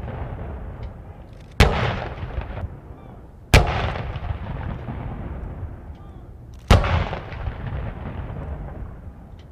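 Ceremonial cannon salute: three cannon shots, the second about two seconds after the first and the third about three seconds later, each followed by a long echo that fades away.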